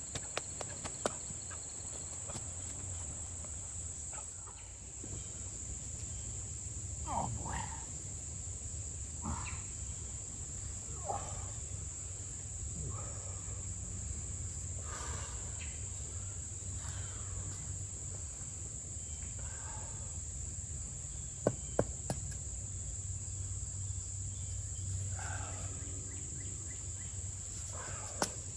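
Insects droning in a steady, continuous high pitch outdoors, with scattered short calls and a few sharp knocks, two close together past the middle and one near the end.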